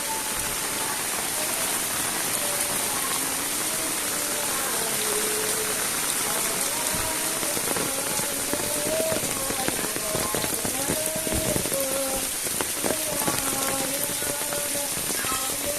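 Heavy rain falling steadily on roofs and ground, a dense hiss with scattered sharper drips. Underneath it runs a faint pitched sound that holds and steps between notes.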